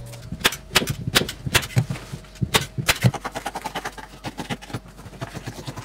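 Hammer tapping staples fully home into an OSB wall through painter's mesh: a run of sharp, irregular knocks, loudest in the first few seconds, followed by fainter, quicker clicks.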